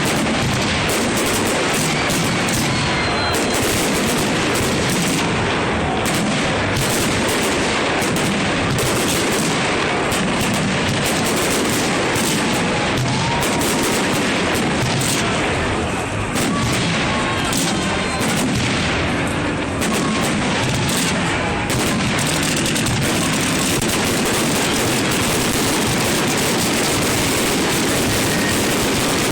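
Fireworks display: a dense, unbroken barrage of rapid bangs and crackling shots.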